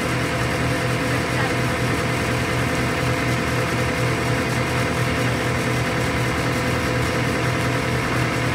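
Truck engine running steadily at an even, low pitch, with no revving or impacts.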